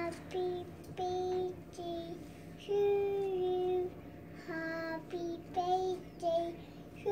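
Toddler singing on her own, a string of short, high, wordless sung notes with brief pauses between them.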